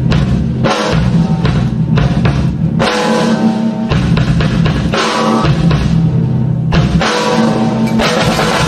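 Drum kit improvisation: a dense, loud run of drum hits with cymbal crashes about every two seconds.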